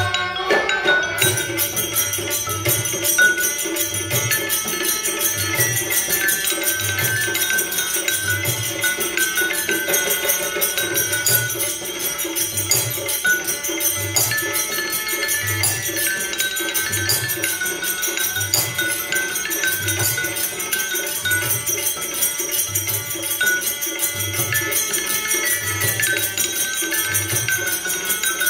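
Rajasthani folk music for the terah taali cymbal dance: small brass cymbals (manjira) struck in a quick, continuous jingle, over a steady low drum beat a little over once a second and a wavering melody line.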